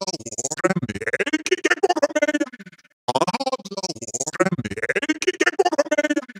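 Synthesized robotic voice chopped into rapid stutters, a phrase of garbled, shifting pitches. It breaks off a little under three seconds in and the same phrase starts again after a brief silence, fading out near the end.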